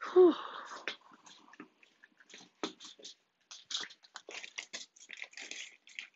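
A brief high squeal that falls in pitch, just after the start, followed by a scatter of irregular clicks, taps and rustles of something being handled.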